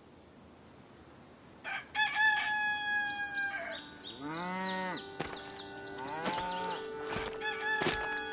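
Farmyard sounds over a steady outdoor hiss that fades in. A rooster crows about two seconds in and again near the end, a cow moos twice in between, and short clucks and chirps are scattered through.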